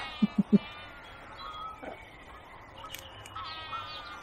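Animal calls, drawn-out and wavering, at the start and again after about three and a half seconds, with three quick low thumps in the first half second.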